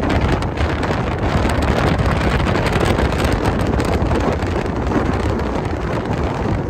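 Wind rushing and buffeting the microphone with road noise from a moving car, a loud steady rush.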